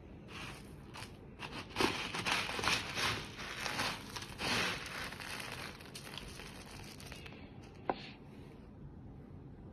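Plastic slotted scoop raking through dry tofu cat litter pellets, a gritty rustling and crunching in uneven bursts through the first half. A single sharp click about eight seconds in.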